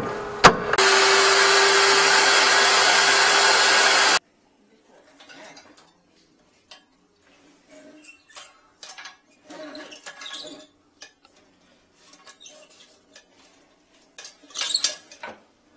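A loud steady rush of noise with a low steady hum underneath cuts off suddenly after about four seconds. Then come faint scattered clicks and clinks of plumbing tools being handled around a toilet bowl, with a slightly louder clatter near the end.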